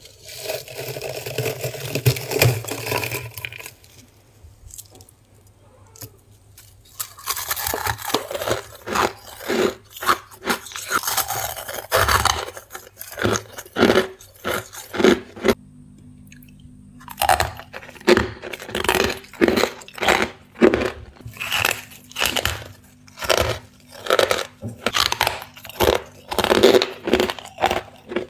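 Freezer frost being bitten and chewed close to the microphone: a steady run of crisp crunches, about one or two a second, with a short pause about halfway through. The first few seconds hold a continuous scraping sound.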